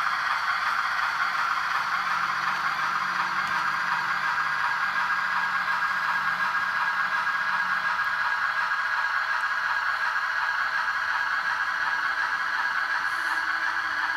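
HO-scale model train rolling along the track: a steady whir and rattle from the locomotive's motor and the cars' wheels on the rails.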